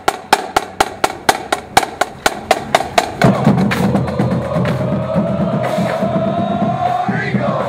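Marching band drumline clicking drumsticks in a steady beat, about four clicks a second; about three seconds in the full band comes in with drums and brass, a long horn note rising slowly in pitch.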